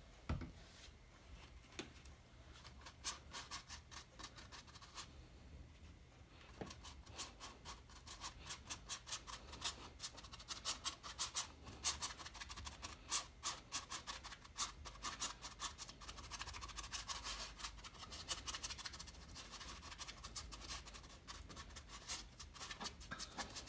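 Foam brush dabbing and scrubbing paint onto a stretched canvas: quick, scratchy strokes, several a second, coming in runs, with a light knock at the very start.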